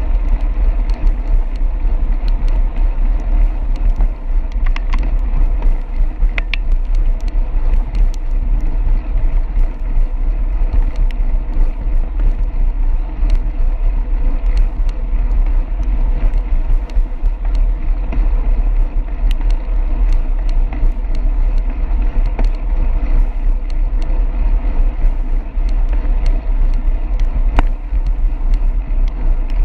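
Bicycle riding on a concrete road shoulder beside car traffic: a steady, loud rumble of wind and road noise on the handlebar camera's microphone, with scattered small clicks and rattles from the bike over the pavement.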